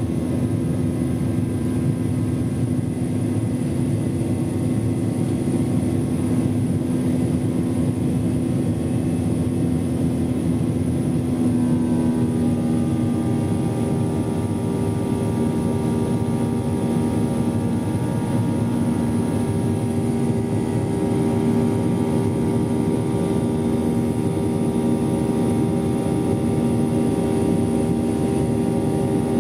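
Jet airliner's turbofan engine heard from inside the cabin during the climb after takeoff: a steady drone with a low hum under a wash of rushing noise. About twelve seconds in, a cluster of higher whining tones comes in, dips slightly in pitch, and then holds steady.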